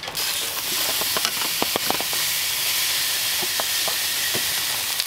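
Ribeye steak sizzling on a hot steel grill top, starting suddenly as the steak is flipped down onto it and holding steady as a loud hiss, with scattered sharp pops.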